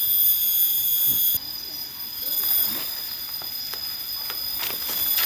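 A shrill, steady chorus of insects, several high buzzing tones at once, that drops sharply in loudness about a second and a half in. A few short rustles follow as leaves brush past.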